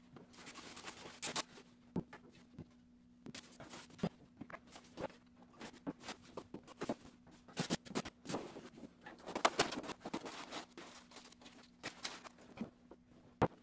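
Sped-up handling noise from unpacking flat-pack furniture: crackly rustling of foam and plastic wrapping with frequent quick clicks and knocks of panels and hardware bags, over a steady low hum.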